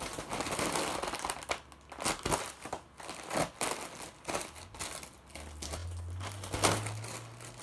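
Foil (Mylar) party balloons crinkling and rustling in irregular bursts as they are squeezed and handled to get more helium out.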